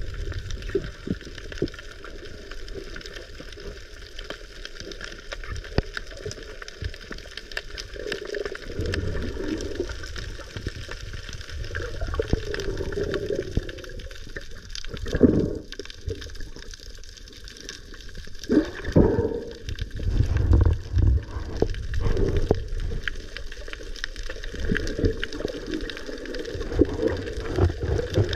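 Underwater sound picked up through an action camera's housing: muffled rushing and gurgling of water as a free-diver swims. It swells into louder surges about halfway through and again a few seconds later.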